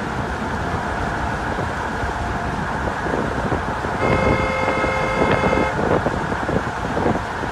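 A vehicle horn sounds once, a steady blast of under two seconds about four seconds in, over steady wind noise and engine rumble.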